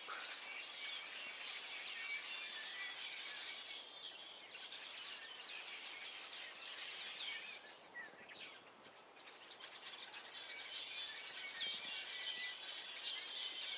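A large flock of small birds chattering together: many overlapping chirps and calls at once. The chorus thins for a moment about two-thirds of the way through, then builds again.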